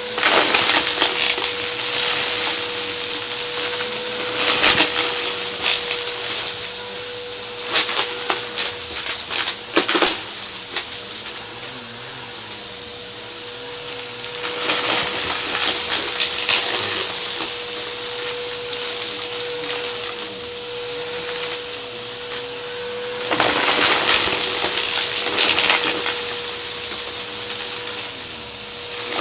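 Vacuum cleaner running with a steady motor whine, sucking up a crunchy dry mess that crackles and rattles as it goes up the nozzle. It swells louder a few times as the head passes over the debris.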